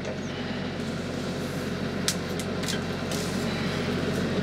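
TYM T264 compact tractor's three-cylinder diesel engine running steadily at raised working throttle while the backhoe's hydraulics move the bucket. A few sharp knocks come about two to three seconds in.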